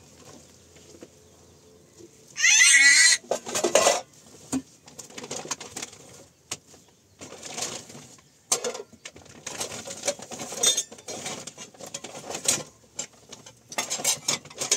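Plastic bags rustling and metal pots and dishes clinking as they are handled, in scattered short knocks and rustles. A short, loud, high wavering call cuts in about two seconds in.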